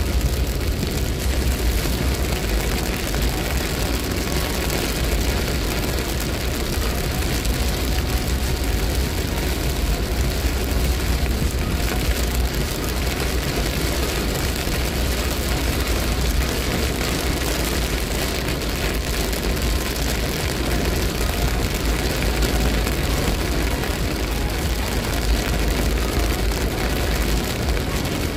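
Steady driving noise of a car on a rain-soaked motorway, heard from inside the cabin: tyres hissing on the wet road and rain on the car, over a deep, even road rumble.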